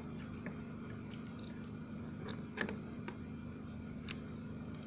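A few light clicks and knocks of a clamp being fitted and tightened on cracked plastic motorcycle fairing, spread out over about four seconds, with a steady low electrical hum underneath.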